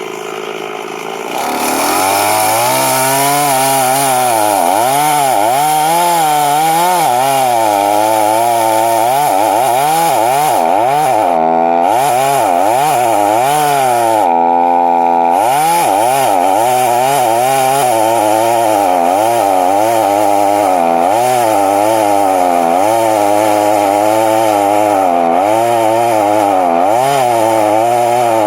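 Chainsaw engine revving up about a second and a half in, then cutting into a tree with its pitch wavering up and down under load. It holds a steady pitch for a moment about halfway through before bogging and rising again.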